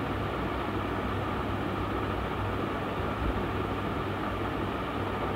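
Steady low hum with an even hiss, unchanging throughout.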